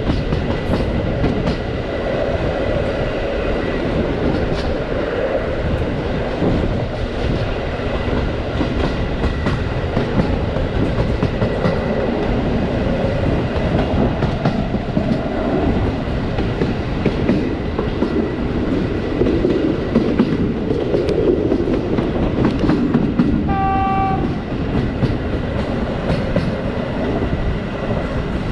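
Passenger train carriage running along the line, heard through an open window: a steady rumble of wheels on rail with clickety-clack knocks over the rail joints. About 24 seconds in, a short horn note sounds, lasting under a second.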